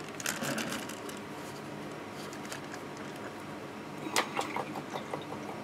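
Handling noise as the painting board is turned around on the work table: two bursts of quick clicks and scrapes, one just after the start and a louder one about four seconds in.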